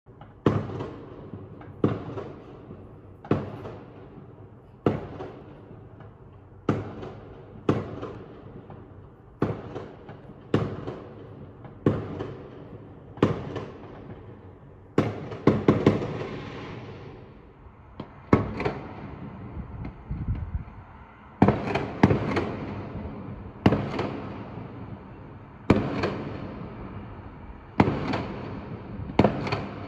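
Fireworks bursting one after another, a sharp bang every second or two, each trailing off in a short echo; a few come as quick doubles.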